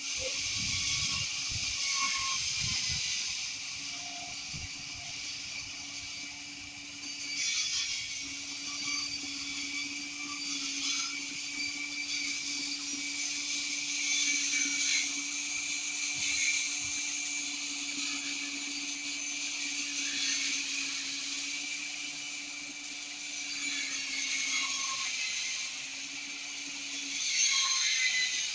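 A woodworking machine runs steadily on a long timber being shaped into a temple flagstaff, with a low steady hum under an even high hiss. A few low knocks come in the first few seconds.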